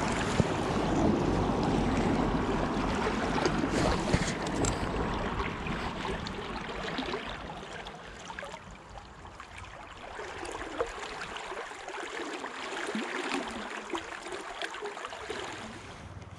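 Fast river water running, with rustling and scuffing over it in the first few seconds as an angler makes his way down a steep grassy bank; after that mostly the steady sound of the water.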